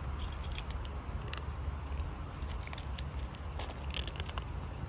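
Kittens crunching dry kibble from a metal plate: quick, irregular crunches and clicks over a steady low rumble.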